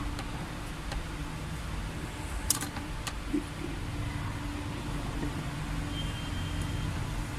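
Steady low mechanical hum like a running vehicle, with a few sharp clicks a little past the middle, the first the loudest.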